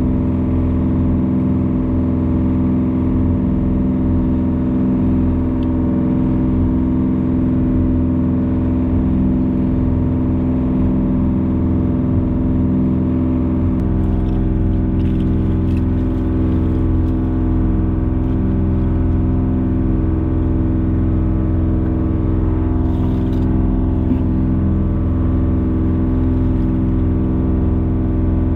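Fishing boat's engine running steadily, a constant drone that deepens slightly about halfway through, with a few faint clicks from the catch being handled.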